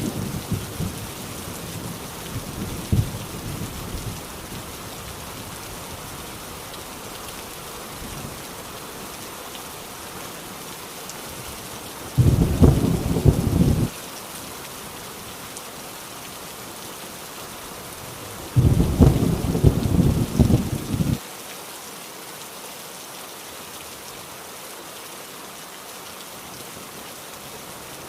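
Heavy rain falling steadily with thunder: a low rumble dies away over the first few seconds, then two loud rolls of thunder come about twelve and nineteen seconds in, each lasting a couple of seconds and cutting off suddenly.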